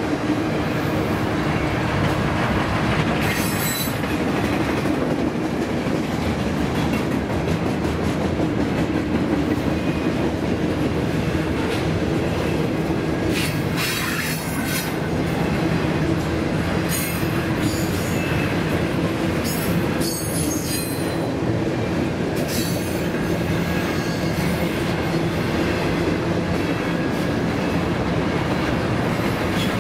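Double-stack intermodal well cars rolling past: a steady rumble of steel wheels on rail, with short high-pitched wheel squeals about 3 s in and several more between about 13 and 21 s.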